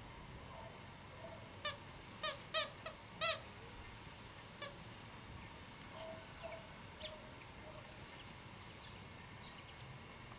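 Pomeranian puppy yapping: a quick run of five short, high-pitched yaps less than two seconds in, then a few fainter yips scattered later.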